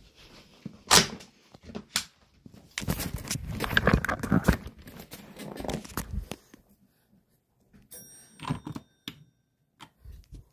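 Handheld handling noise: scattered clicks and knocks, with a few seconds of rustling and clatter in the middle, and faint high-pitched tones near the end.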